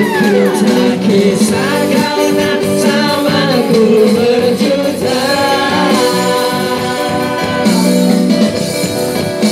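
Live amplified band music: a woman and two men singing into microphones over electric and acoustic guitar, their voices trading and joining.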